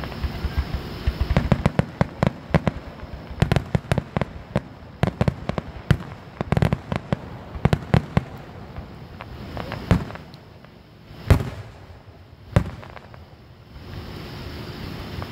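Aerial fireworks shells bursting in rapid succession, a dense run of sharp bangs and crackles. After about ten seconds the bangs thin out to three single loud booms, the loudest about eleven seconds in.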